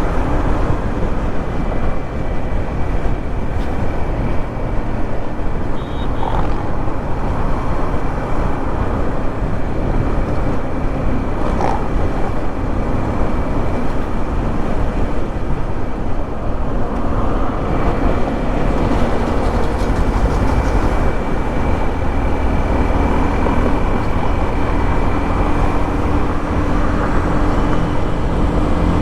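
Yamaha MT-15's single-cylinder engine and exhaust running steadily while riding, with a heavy rush of wind and road noise underneath.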